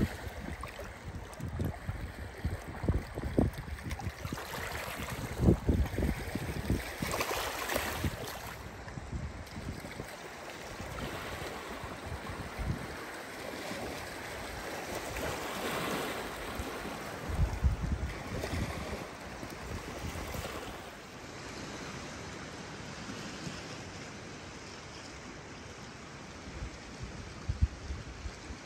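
Small lake waves lapping and washing against a rocky shore, with gusts of wind buffeting the microphone in low rumbles, heaviest in the first eight seconds or so.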